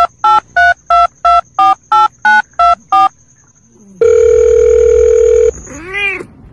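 Phone keypad dialling tones: about ten short two-tone beeps, about three a second. Then a steady phone tone for about a second and a half, and near the end a single short cat meow that rises and falls in pitch.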